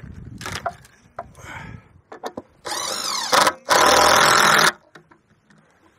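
Power drill driving screws through a wooden owl nesting box into a tree trunk in two runs of about a second each, the second the louder. The runs are preceded by a few light knocks and rustles of handling.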